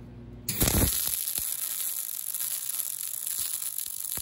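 MIG welding arc crackling and sizzling steadily as a short weaving tack weld is run. It strikes about half a second in. The tack joins the backup bar to the test plates.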